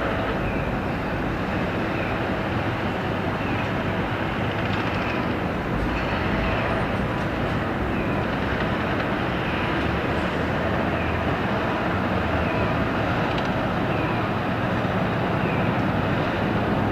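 Engines of heavy machinery running steadily, an unbroken mechanical rumble with faint high squeaks recurring about once a second.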